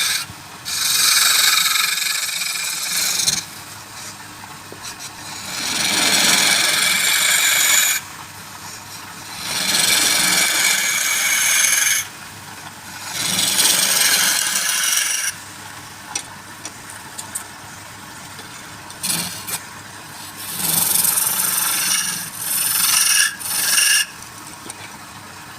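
A turning tool cutting wood on a running lathe, in repeated passes of two to three seconds with quieter gaps between, plus a few shorter touches near the end.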